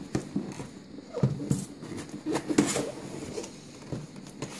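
Cardboard laptop box being handled and opened by hand: scraping and rubbing of the cardboard with several light knocks, loudest about one and a half and two and a half seconds in.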